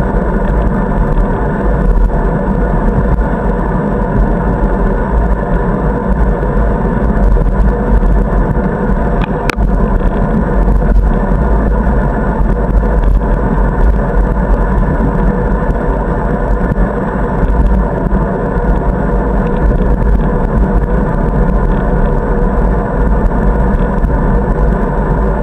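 Steady wind noise and tyre rumble on a bicycle-mounted camera riding along an asphalt cycle path, heaviest in the low end, with a single sharp knock about nine and a half seconds in.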